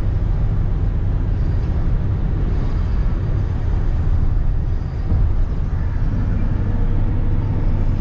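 Road noise heard inside a moving car's cabin at highway speed: a steady, low rumble of tyres and engine.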